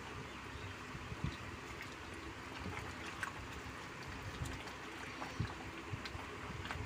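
Thin, watery mutton curry with potatoes simmering and bubbling in a metal pan, with a spatula stirring through it and a few faint clicks against the pan.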